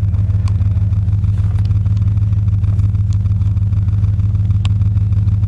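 1998 Dodge Ram 1500's 5.9L V8, fitted with headers, idling steadily at about 900 rpm, heard from inside the cab.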